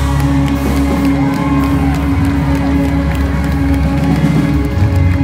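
Live band music with held, steady chords over a steady bass, and a crowd cheering and whooping over it.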